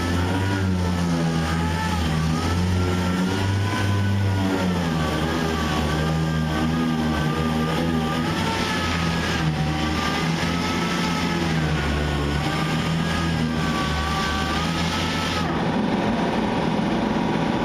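Power sander working on a truck's body panel, a steady motor whine whose pitch rises and falls as it bears on the panel. The whine stops near the end.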